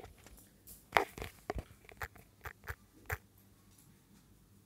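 Light fingertip taps on a smartphone touchscreen while typing a search: about seven short clicks, irregularly spaced, over two seconds, then quiet room tone.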